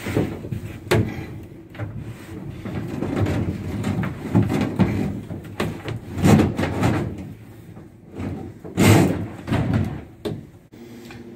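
Bus-line cable in plastic conduit being pulled through the side of a boat's helm console under the dash: irregular scraping and rustling with several knocks against wood and the aluminium hull, the loudest about six and nine seconds in.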